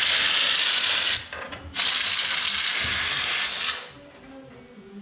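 Air-powered spray gun with a screw-on canister and a long extension wand hissing as it sprays rust treater into a roof channel. It runs in two bursts, released briefly a little over a second in, and stops near the end.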